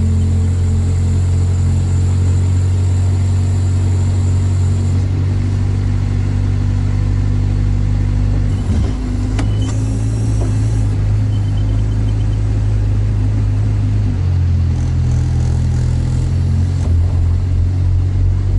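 An all-terrain vehicle's engine drones steadily inside the cab as it drives across rough ground. The engine note changes briefly about nine seconds in and shifts again about fourteen seconds in.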